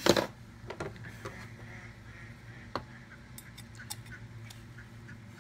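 Parts of a Spyderco K2 folding knife being handled on a hard work surface: a sharp knock at the start, then scattered light metallic clicks and taps, coming faster near the end as the blade and handle are picked up.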